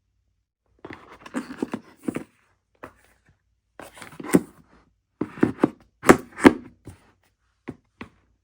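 Hands handling a new iPad and its accessories on a tabletop: irregular clusters of taps, knocks and thunks with some rustling. The loudest knocks come about four and six seconds in.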